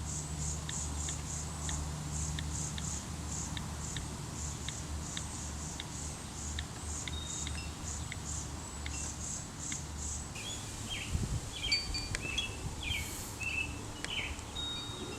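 Outdoor wildlife sounds: a high chirping repeated about three times a second until about ten seconds in, then a bird singing short, varied chirps, over a low steady hum.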